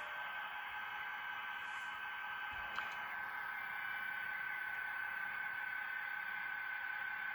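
Battery-powered HO scale diesel locomotive running on the layout: a steady high motor-and-gear whine, with one short click about three seconds in.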